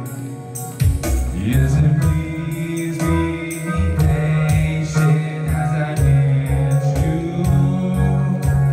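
Live rock band playing a song: a drum kit with a steady kick-drum beat and cymbal hits, held low bass or keyboard notes, and a voice singing.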